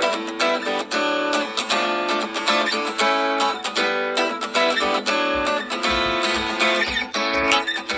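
A Samsung Galaxy S6 stock ringtone playing: a guitar tune of quick plucked and strummed notes.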